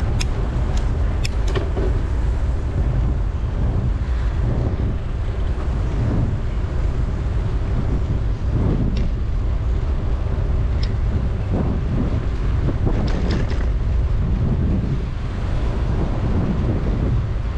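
Wind buffeting the microphone of a bike-mounted action camera while riding, a loud, steady low rumble, with a few sharp clicks near the start and again in the second half.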